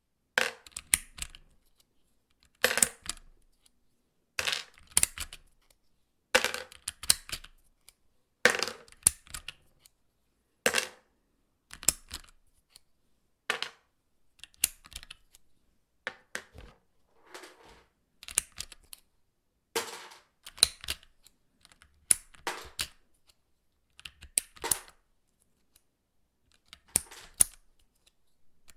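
Sharp plastic clicks and clacks from a mechanical keyboard's parts being handled, in short clusters about every two seconds with quiet in between.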